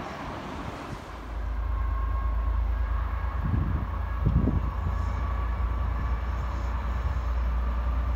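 A train rumbling in the distance as it approaches along the tracks: a low steady rumble that comes in about a second in, with a faint steady whine above it and a few low thumps.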